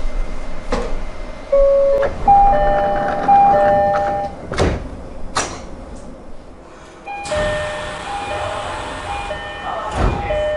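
Train door chimes of the JR East three-tone type sounding as a repeating ding-dong of high tones, with two sharp door knocks in the middle. After a break about six seconds in, a second train's door chime of the same type repeats over carriage noise.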